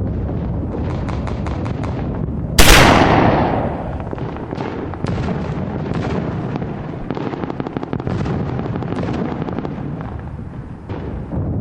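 Battle sounds: gunshots cracking throughout, some in quick runs, over a steady rumbling background, with one loud explosion about two and a half seconds in that dies away over about a second.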